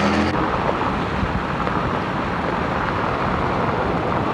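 Steady road and wind noise of a car on the move, heard from inside the cabin.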